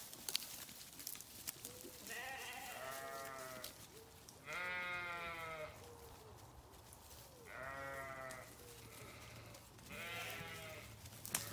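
Sheep bleating: four separate bleats a few seconds apart, each with a wavering pitch, the loudest about halfway through. A brief sharp click sounds near the start.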